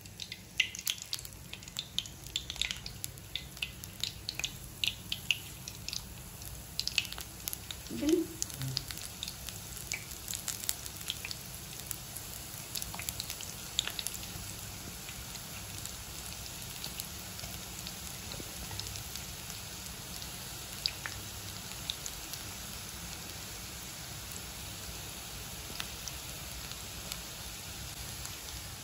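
Onion pakoda batter frying in hot oil in a kadai. Dense crackling and popping as fresh batter hits the oil over the first several seconds, then a steady sizzling hiss with scattered pops.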